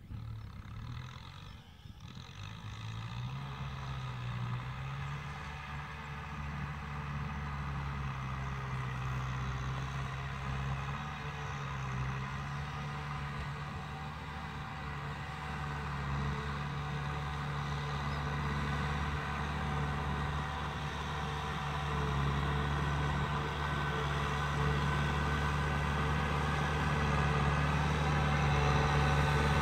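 Farm tractor engine running steadily, its revs rising slightly about two seconds in, growing gradually louder as the tractor drives closer across the field.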